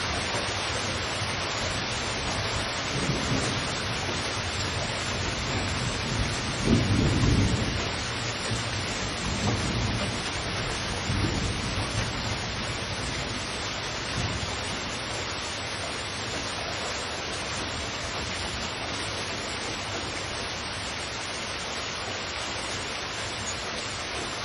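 Heavy, steady rainfall with low rolls of thunder rumbling through the first half, the loudest about seven seconds in.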